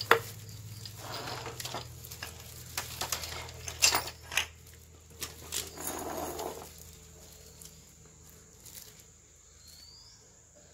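Metal parts of a disassembled car A/C compressor clinking and knocking against each other and the table as they are handled and set down; the handling dies away in the last few seconds.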